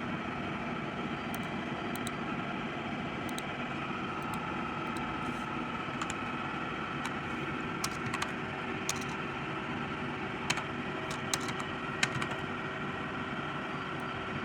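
Scattered computer keyboard taps and mouse clicks as a program file is saved, over a steady background hum with a faint high whine.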